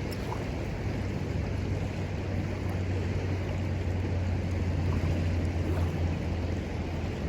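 River flowing with a steady rushing sound and a low rumble of wind on the microphone, with a few faint ticks.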